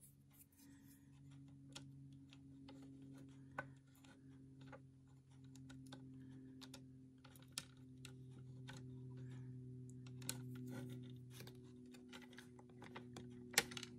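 Faint, scattered clicks and taps of a plastic RC car gearbox housing and its small bevel gear being handled while grease is worked onto the gear, with a sharper click near the end, over a steady low hum.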